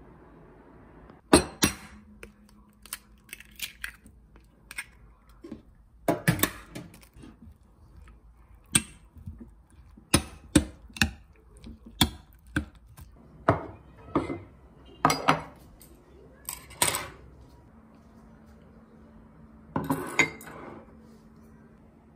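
A utensil repeatedly clinking against a glass bowl while cooked barley rice and egg are mixed in it: sharp clinks, coming about every half second in the middle stretch, with a denser clatter near the end.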